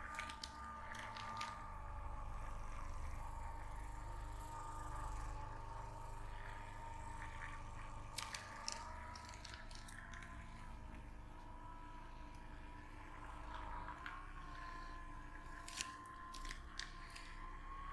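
Hands rubbing and pressing on skin in a massage, with a few sharp clicks, over a steady, faintly wavering hum.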